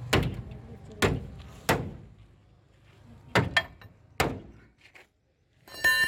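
A series of sharp knocks, about six at uneven spacing, then a metallic clatter with a ringing tone near the end, from work on a broken-down vehicle's tyre and wheel.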